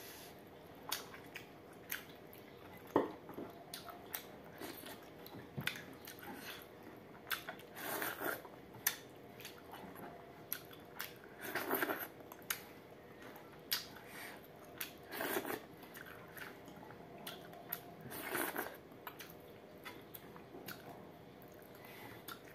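Close-up eating sounds: chewing with wet mouth clicks and smacks while rice and curry are eaten by hand. Every few seconds there is a longer wet sound.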